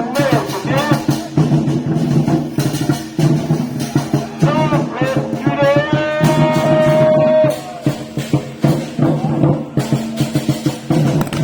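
Ritual procession music: a wind instrument plays a wavering, sliding melody over steady drum beats and percussion, with one long held note in the middle.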